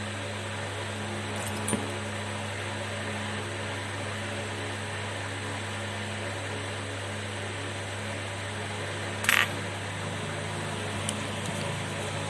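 Steady hum of workbench equipment, with a few light clicks of small tools on the phone board, the loudest about nine seconds in.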